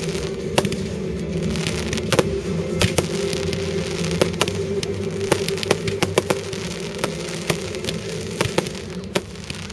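Fireworks display: aerial shells bursting in many sharp, irregular bangs and crackles, over music with steady held low notes.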